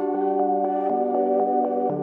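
Ambient music: soft, sustained synthesizer chords held in long tones, the chord shifting about a second in and again near the end.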